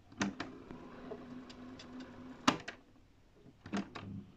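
Piano-key transport buttons of a National Panasonic RQ-516S cassette boombox clicking: a key goes down and the tape mechanism whirs steadily for about two seconds, winding the tape back, then stops with a sharp clack. Near the end two more key clicks follow.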